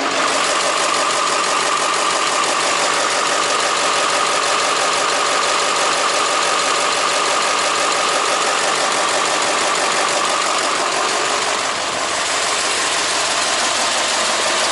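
Mercedes-Benz SK 2628 truck's V8 diesel engine running steadily, with a strong even drone; it eases off slightly a little before the end.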